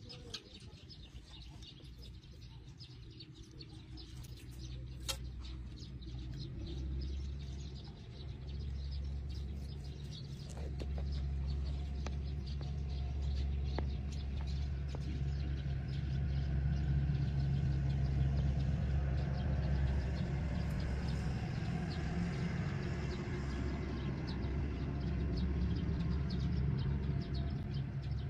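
A low, steady engine drone that builds up over the first several seconds and then holds, with birds chirping now and then.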